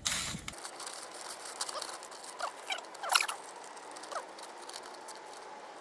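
Scissors snipping through a paper stencil sheet, with the paper crinkling and rustling under the hands: scattered small clicks and crinkles, the loudest about three seconds in.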